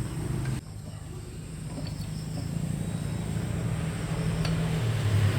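A machine running steadily with a low, pulsing hum. It drops off sharply about half a second in, then grows slowly louder.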